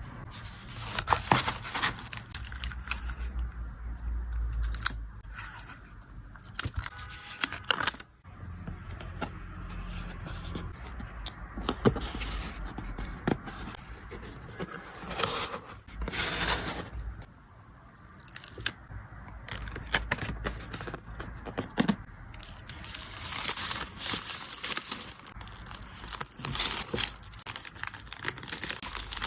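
Hand-packing photocards: plastic sleeves and wrapping crinkling and tearing, with short sharp clicks and scrapes, in irregular bursts.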